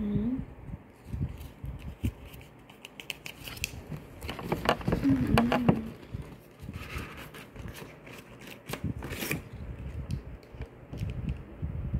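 Cardboard inserts of a smartphone retail box and an earphone cable being handled: scattered rustling, scraping and light clicks of paperboard, busiest about midway, with a sharp click later on.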